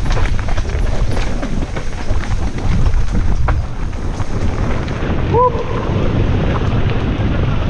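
Wind rushing over the camera microphone on a fast enduro mountain-bike descent, with a steady low rumble and frequent sharp knocks and rattles from the bike on a rough, rocky trail. A short squeak about five seconds in.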